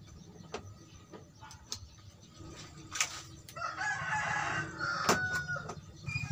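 A rooster crowing once in the second half, one call of about two seconds. A few sharp clicks sound around it.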